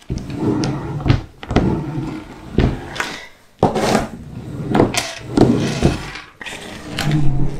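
A hand pressing and rubbing across a finished diamond painting canvas in repeated strokes, with sharp clicks as resin drills that were sticking up at the top are pushed down into their places.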